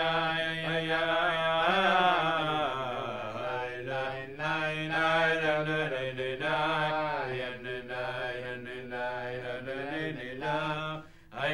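Hasidic men singing a slow, chant-like melody in low voices, with a brief break near the end.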